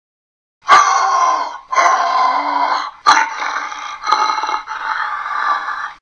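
Imitation dinosaur growls made by a person's voice through an empty cardboard paper towel tube, unedited. After a short silence, about five growls follow one another with hardly a break; the first is the loudest.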